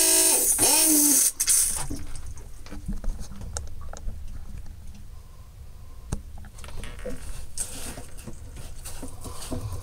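Newly installed electric holding-tank pump on a small boat switched on and running, with its seacock still closed so it is not yet picking up waste. It is loud and rasping for about the first second, then settles to a quieter steady hum with scattered clicks.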